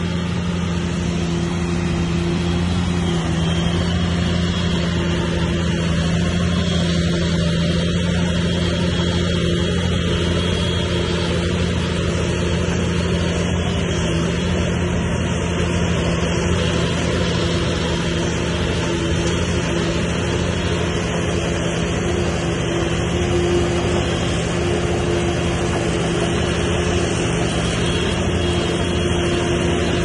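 Bulldozer's diesel engine running at a steady speed, a constant drone with no revving.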